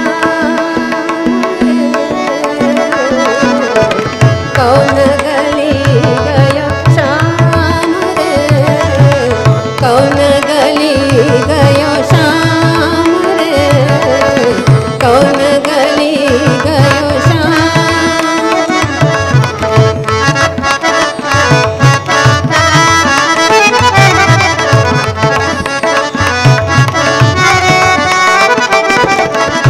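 Hindustani classical thumri in raag Mishra Khamaj: a woman singing with tabla keeping a steady rhythm, harmonium following the melody, and a tanpura drone underneath.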